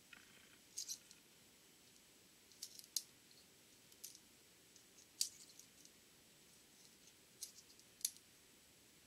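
Sharp, light clicks and ticks, some in quick pairs and clusters, as the gears and synchronizer parts on a Borg Warner T-10 transmission mainshaft are handled and shifted by gloved hands, with a brief soft rustle at the start.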